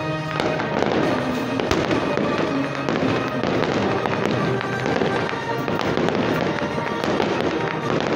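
Aerial fireworks bursting in quick succession, a dense run of sharp bangs and crackles with no gap, with music playing alongside.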